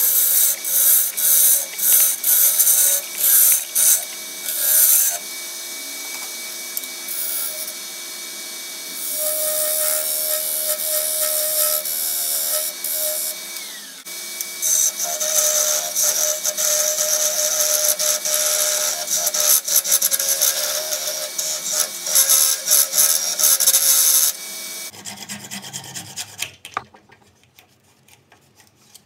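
Wood lathe running with a turning tool cutting and rubbing against a spinning blank of wet cypress, in choppy passes for the first few seconds and then steadier. The lathe whine stops near the end, followed by quieter strokes of a hand saw cutting through the wood.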